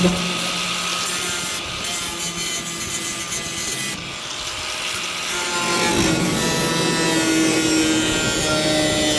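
Power tool cutting through the sheet-metal side of a truck bed to remove the old fuel-door opening. It runs with a harsh, noisy saw sound that stutters and catches in the first half, then runs steadily from about six seconds in.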